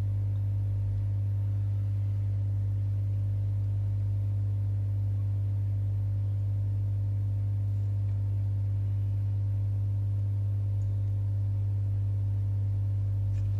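Hot air rework station blowing on a laptop motherboard chip with its airflow turned down almost to minimum, while an I/O chip is reflowed into place: a steady low hum that does not change.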